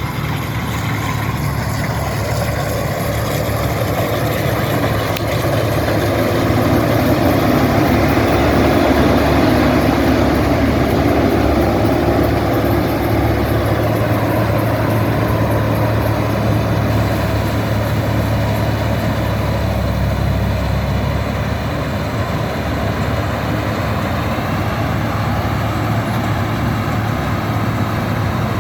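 Zoomlion combine harvester's engine and machinery running steadily, with a constant low hum. The sound swells a little for a few seconds about a third of the way in, then settles back.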